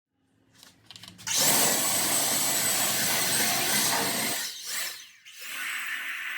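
Compressed-air nozzle blowing dust out of a car's engine bay: a loud hissing rush of air with a thin whistle, cut off about four seconds in, then starting again more softly for the last second or so.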